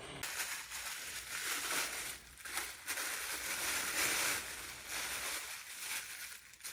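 Packaging rustling and crinkling as a gift is unwrapped: an uneven, crackly rustle that goes on for several seconds.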